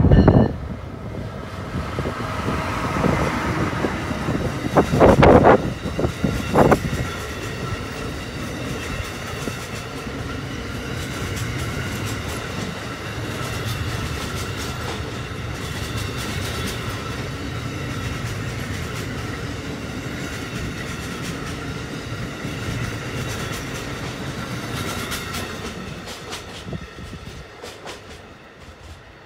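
Amtrak passenger train passing close by, its wheels clattering over the rails with a few steady tones over the rolling noise, then fading away as the last car goes by. Two short loud blasts come about five and seven seconds in.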